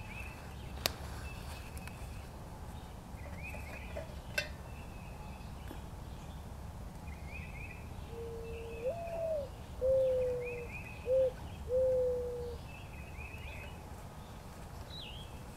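Birds singing in the woods: a small bird repeats a short high chirping phrase every second or two. About halfway through, a dove gives one low cooing call of four or five notes, the second rising and then falling and the rest falling off. Two sharp clicks come early on over a low rumble.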